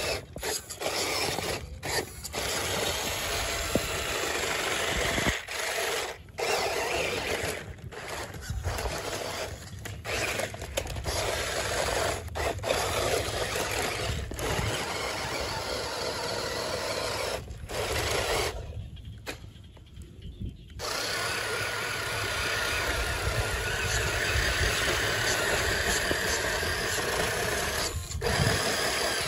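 Electric motor and gearbox of a toy RC rock crawler whining as it crawls over loose dirt, the throttle cutting in and out many times. There is a pause of about two seconds about two-thirds of the way through, after which the whine runs steadier.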